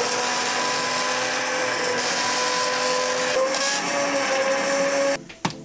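Hand blender running steadily in a pot, puréeing cooked pumpkin and carrot soup. Its motor whine rises slightly in pitch partway through, and it switches off abruptly about five seconds in.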